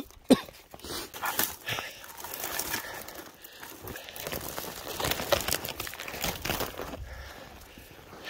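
Footsteps crunching in snow and bare twigs scraping against clothing as a person pushes through brush, in an irregular run of rustles and small snaps. A sharp knock comes right at the start.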